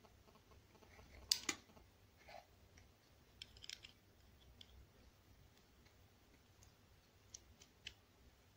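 Faint clicks and scrapes of a small screwdriver and plastic lamp-holder parts as a wire is fastened under the holder's terminal screw; the sharpest pair of clicks comes about one and a half seconds in, with smaller ticks a little before four seconds and near the end.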